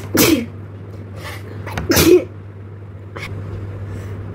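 A person sneezing twice, about two seconds apart, each sneeze a sharp blast ending in a voiced cry that falls in pitch. A sneezing challenge, with the sneezes provoked by tickling the nose with long grass. A steady low hum runs behind.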